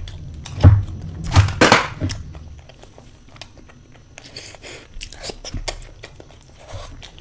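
Close-miked eating of spicy eggs: biting and chewing with wet mouth noises. The loudest bite and chew sounds come in the first two seconds, followed by quieter chewing clicks and smacks.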